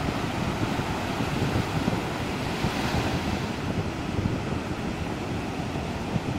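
Sea surf breaking and washing up a sandy beach, a steady rush with a wave's hiss swelling about halfway through, with wind buffeting the microphone.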